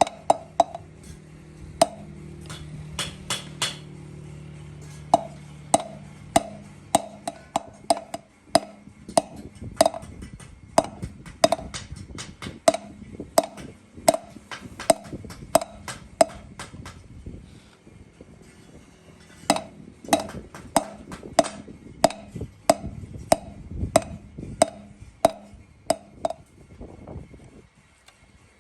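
Repeated hammer blows on metal, about two a second, each with a short metallic ring; they pause briefly about two-thirds through and stop near the end. A steady machine hum runs under the first few seconds.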